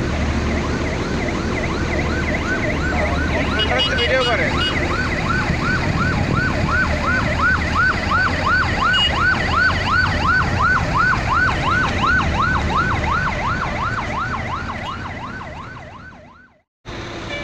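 Emergency vehicle siren in a fast wail, rising and falling in pitch nearly three times a second over a low background rumble, fading away near the end.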